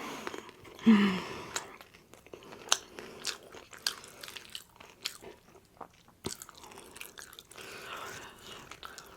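A person biting and chewing crunchy fried rolled tacos, with sharp, irregular crunches throughout.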